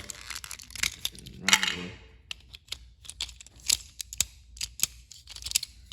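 Small sharp clicks and clinks of a toy RC Thomas engine's hard plastic and metal parts being handled, irregular throughout, with a louder clatter about one and a half seconds in.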